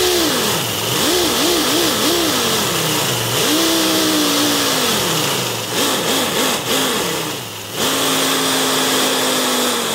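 3D-printed V10 compressed-air engine running. Its pitch rises and falls as it revs up and down: strings of quick blips about a second in and again past the middle, longer held revs in between and near the end. A constant hiss of air runs under it.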